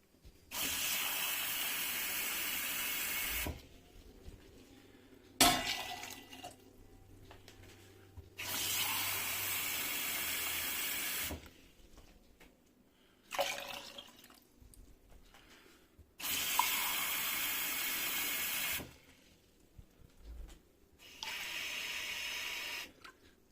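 Water poured from a drinking glass into a cooking pot, four separate pours of two to three seconds each, with a short knock between some pours.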